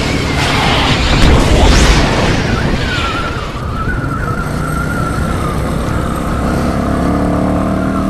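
1982 Honda XL185S's small single-cylinder four-stroke engine running as the bike is ridden, under heavy wind rush on the microphone that is loudest about one to two seconds in and eases off by the middle, after which the engine's steady note comes through more clearly.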